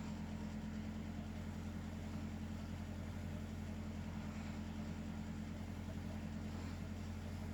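A steady low machine hum that holds the same level throughout, with no snore or breath standing out above it.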